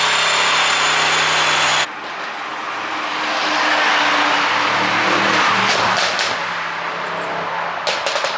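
Mercedes-AMG E63 4Matic+ twin-turbo V8 running with held revs, cut off abruptly about two seconds in. It then revs up and falls away, with a few sharp exhaust pops around the middle and a quick cluster of pops near the end, from the ECU pop-and-crackle tune.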